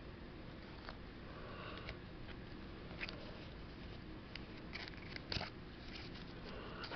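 Faint rustling and a few light clicks of Pokémon trading cards being handled, over low room noise, with a small cluster of clicks about five seconds in.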